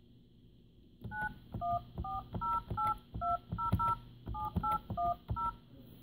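ShoreTel IP 655 desk phone keypad sending DTMF touch tones as a phone number is keyed in. There are twelve short two-tone beeps, one per key press, each with a light click of the key. They start about a second in and come at roughly three a second.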